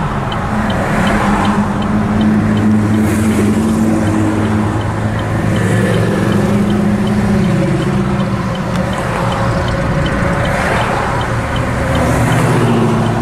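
Classic American muscle cars cruising slowly in traffic, their exhausts giving a steady deep rumble that swells slightly near the end as a car pulls away.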